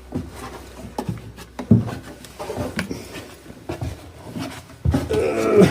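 Footsteps on steep, ladder-like wooden stairs going down: a series of irregular knocks and clicks, with a louder thump about one and a half seconds in.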